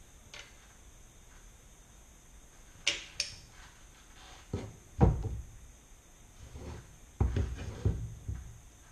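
Two sharp clicks from a hand caulking gun working sealant onto a van roof seam, then several dull knocks and clunks, the loudest about five seconds in. Near the end a cluster of knocks comes as the metal gun is set down on the van's roof.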